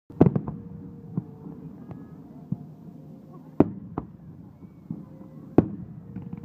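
Aerial firework shells bursting in the night sky: a quick cluster of sharp bangs at the start, then single bangs every second or so, the loudest about three and a half and five and a half seconds in.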